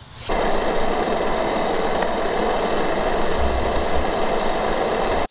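Portable gas stove burner running under a camping kettle: a steady rushing hiss as the water heats for tea, starting suddenly just after the start.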